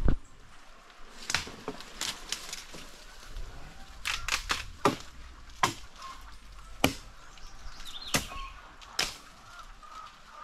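Irregular sharp snaps and knocks, about ten in all, from someone climbing along the limbs of a large tree: twigs and branches cracking and knocking under his feet and hands.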